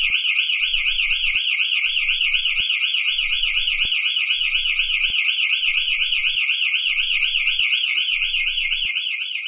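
Electronic burglar alarm siren of a house or shop, sounding continuously with a high-pitched tone that warbles rapidly up and down several times a second.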